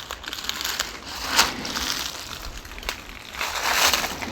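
Footsteps crunching through dry leaf litter, with irregular louder crunches and sharp crackles.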